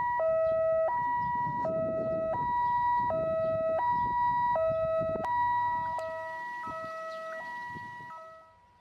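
Two-tone hi-lo siren, switching between its two notes about every 0.7 s, over the low rumble of a moving vehicle; it fades away over the last few seconds.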